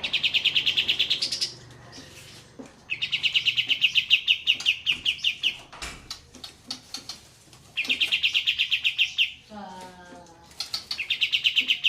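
Olive-winged bulbul (kapas tembak) singing its rolling 'ngeroll' song: four loud, fast, high trills of rapid repeated notes, each one to three seconds long with short gaps between. The backing is a soft trickle of water. About ten seconds in, a brief lower run of notes sounds.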